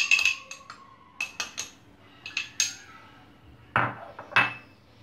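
Metal spoon clinking and tapping against a glass bowl and a plate while ingredients are spooned in: several light clinks with a short ring, then two louder knocks near the end.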